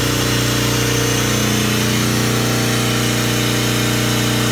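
Ship's air compressor running steadily: a constant low machine hum with a hiss over it. Its unloader valve diaphragm is worn and leaking, which makes the compressor slow to charge the air bottles.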